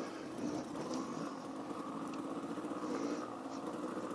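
Off-road vehicle engine running steadily at a low, even pace, heard as a constant drone.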